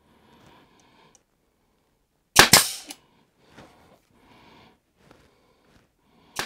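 Brad nailer firing, driving nails through a glued MDF strip into an MDF panel: one sharp crack about two and a half seconds in and another at the very end, with faint handling rustle between.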